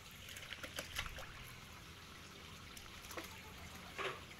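Water sloshing and trickling in a plastic basin as a large eel is handled and set down in it, with small scattered splashes and knocks and a louder splash about four seconds in.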